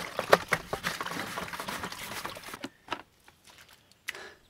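Hands working inside a plastic bucket: a quick run of plastic knocks, clicks and scrapes that stops about two and a half seconds in, followed by a couple of faint clicks.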